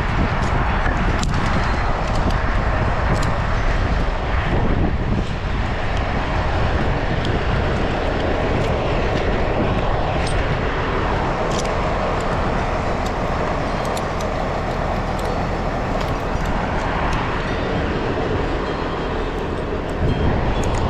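Wind buffeting the climber's microphone in a steady, loud rumble, with a few faint clicks from handling.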